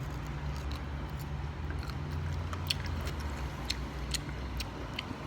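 A person chewing food, with scattered short wet clicks and crunches from the mouth, over a steady low hum.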